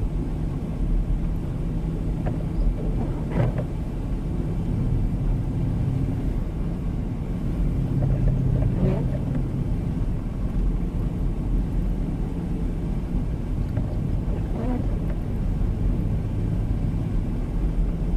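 Steady low rumble of a four-wheel-drive vehicle's engine and tyres on a snow-covered road, heard from inside the cabin, with a few faint brief sounds over it.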